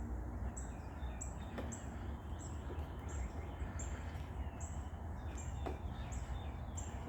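A songbird repeating short, very high, thin notes that slur downward, about two a second, over a steady low outdoor rumble.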